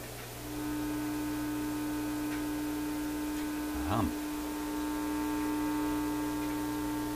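Tube PA amplifier's speaker giving a steady mains hum with several overtones, which comes up about half a second in. The hum is picked up at the reconnected phono input, and the owner reads it as a sign of a very high-impedance input.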